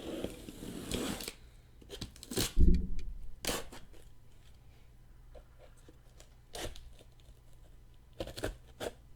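Packaging on a case of trading-card boxes being torn open in the first second or so, then a loud knock about two and a half seconds in and several lighter knocks and rustles as the boxes are handled.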